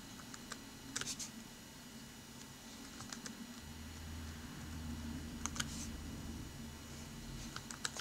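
Faint clicks at a computer, in small clusters of two or three roughly every two seconds, over a low steady hum.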